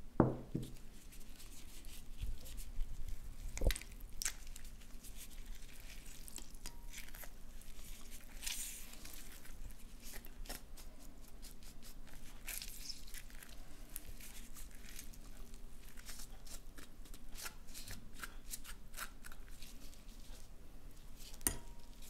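Halved citrus fruit squeezed by hand over a bowl: irregular wet crackling and squishing as the rind and pulp give way. The loudest sound is a thump right at the start as the bowl is set down on a wooden cutting board, with another knock a few seconds in.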